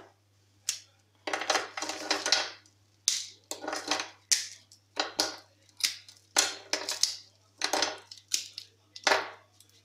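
Hardened caramelized-almond brittle being snapped into pieces by hand on baking paper: an irregular run of sharp cracks and crackles with the paper crinkling, about one or two a second, with a dense flurry of crackling about a second and a half in.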